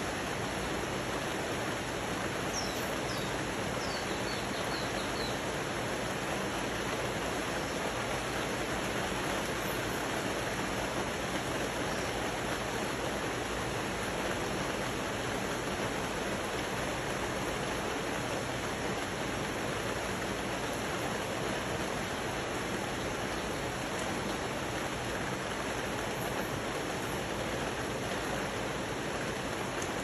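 Steady rain falling on rainforest foliage, a continuous even hiss. A bird gives a short run of high chirps about three seconds in.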